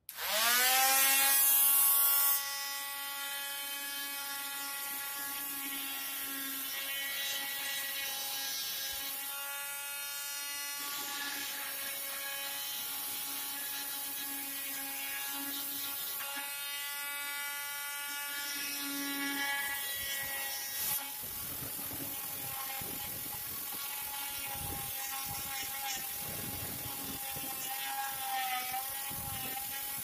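WORKPRO oscillating multi-tool switched on: its motor whines up to speed within a second, runs louder for the first two seconds, then settles to a steady high whine. From about twenty seconds in, its saw blade plunge-cuts into a wooden board, adding a rough rasping buzz and small dips in pitch under load.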